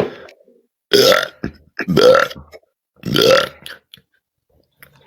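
A woman belching on purpose: three long, loud belches about a second apart, each with a pitch that curves upward.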